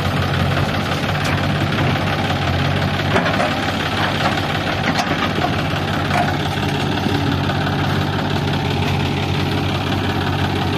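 Diesel engines running steadily: a John Deere tractor idling close by and a JCB 3DX backhoe loader working behind it. A few sharp knocks stand out between about three and six seconds in.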